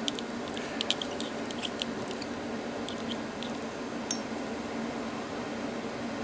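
Light metallic clicks and taps from small steel parts being handled: bearings, pipe and washers knocking together. The clicks come in a quick cluster over the first two seconds, then a few scattered ones, over a steady background hum.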